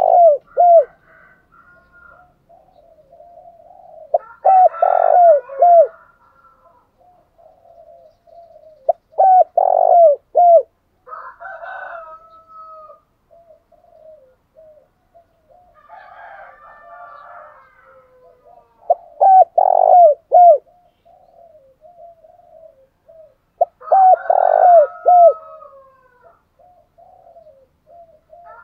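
Spotted doves cooing. Loud bouts of three or four quick, hooked notes come about every five seconds, with softer coos running between them.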